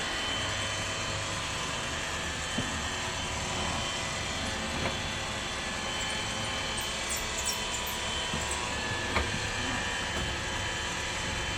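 Tefal robot vacuum cleaner running across the floor: a steady whirr of its motor and brushes with faint steady tones, with a few small clicks and knocks along the way.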